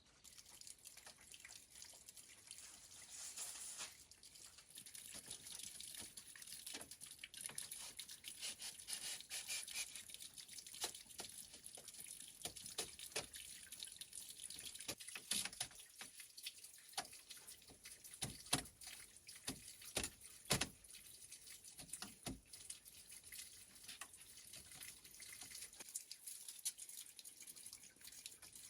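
Water running and dripping from a kitchen tap into a sink, with irregular clinks and knocks of things being handled in it; a few sharper knocks come about two-thirds of the way through.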